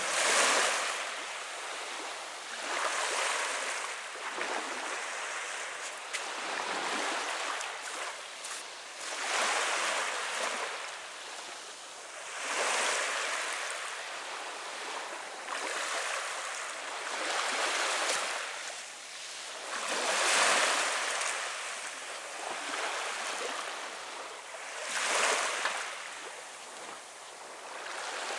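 Small waves lapping onto the shore of a calm sea, each wash swelling and fading every few seconds.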